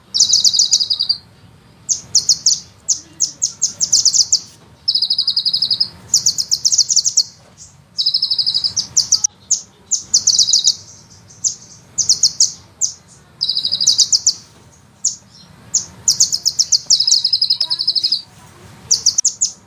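Sunbird singing: repeated bursts of very rapid, high trilled notes, each burst about a second long with short pauses between, the fast rolling trills that bird keepers prize.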